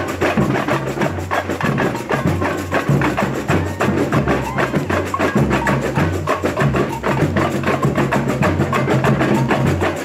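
Samba bateria (samba school percussion band) playing a fast samba groove: deep bass-drum beats under a dense, even rattle of quick high strokes.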